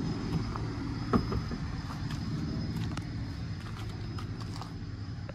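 Truck engine idling steadily with a low hum, with a single knock about a second in and a few faint ticks.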